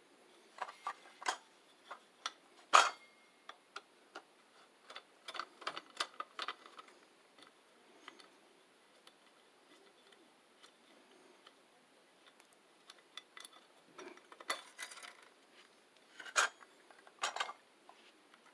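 Irregular light clicks and taps of small parts being handled, with one sharper click about three seconds in. There is a quieter stretch in the middle before the clicking picks up again.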